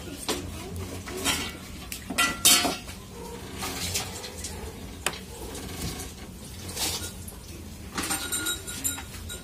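Hands rummaging among clothes hung on a rail: scattered light clinks and knocks with cloth rustling, the loudest cluster about two and a half seconds in.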